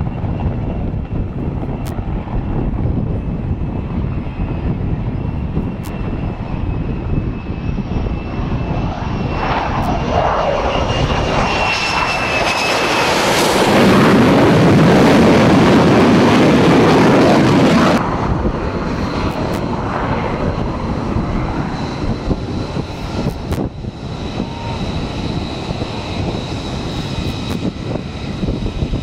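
Single-engine jet noise from an F-35C's turbofan. It grows louder as the aircraft comes in and is loudest for a few seconds midway as it lands on the carrier deck, then drops off suddenly. After that a steadier, quieter engine whine runs on with the jet on deck.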